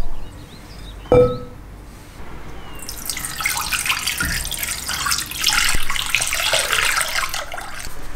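A single knock against a glass bowl with a brief ring, about a second in. Then water is poured from a glass jug over carrots into the glass bowl, splashing for about five seconds.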